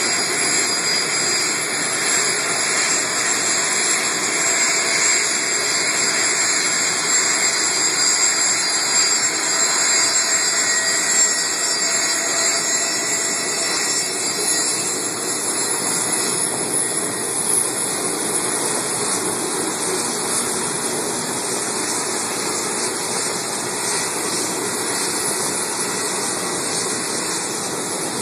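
Turbofan engines of a taxiing twin-engine business jet, a steady rushing jet noise with a high whine. The whine grows weaker in the second half.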